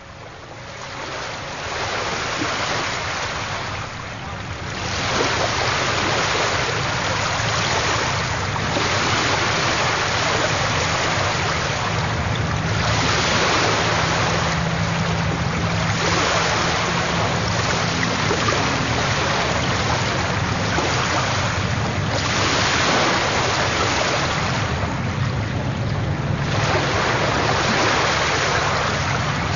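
Sea surf: waves washing in a steady rush that swells and eases every few seconds, with a faint low hum beneath.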